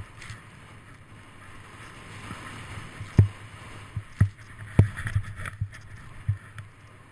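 Snowboard riding down powder snow, heard from a camera on the rider: a steady rush of snow and wind with a low rumble, broken by several sharp knocks, the loudest a little after three seconds and just before five seconds.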